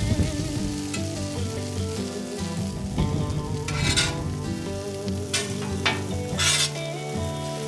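Shredded hash brown potatoes sizzling in butter on a hot Traeger Flatrock flat-top griddle while a metal spatula tosses them, with a few short, sharp scrapes of the spatula across the griddle top in the second half.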